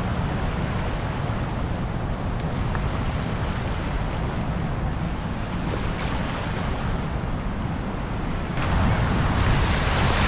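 Steady rush of fast river water with wind rumbling on the microphone. A little before the end the rushing gets louder and brighter.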